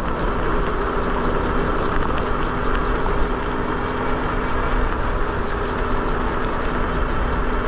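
Hub-motor e-bike riding along: steady wind rush and tyre rumble, with a faint steady hum that stops about five seconds in.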